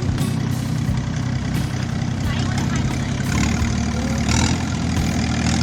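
An engine running steadily with a constant low hum, with faint voices in the background.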